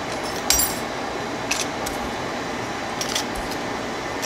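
Small metal corner protectors clinking lightly as they are handled and slipped into a small plastic bag, a few scattered clicks and taps.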